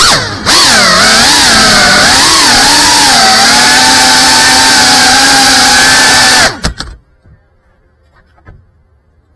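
GEPRC Cinelog 35 cinewhoop's brushless motors and ducted propellers whining, close to the onboard camera's microphone. The pitch swings up and down with the throttle for the first few seconds, then holds steady, and cuts off about six and a half seconds in as the drone sets down and the motors stop.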